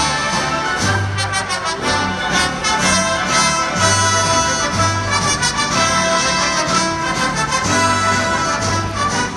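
Orchestra playing, with brass to the fore over a repeating low bass note.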